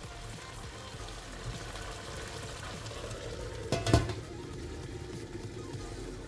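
Beef rolls and onions simmering in a stainless steel roasting pan as the liquid cooks off, a steady low bubbling and sizzling. Just before four seconds in the stainless steel lid is set on the pan with a sharp metal clank.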